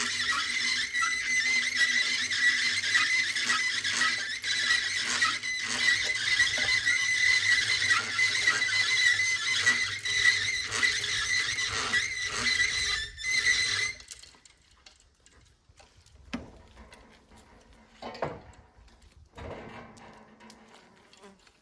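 Chain hoist hung from a steel cable squealing steadily, with a rapid run of small clicks, as it lifts a log; the squeal cuts off abruptly about two-thirds of the way through. A few faint knocks follow.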